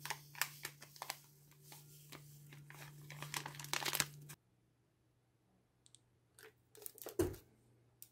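Crinkly plastic packaging, most likely the MRE drink-mix pouch, rustling and crackling as it is handled for about four seconds. Then come a few faint ticks and a single dull thump a little after seven seconds.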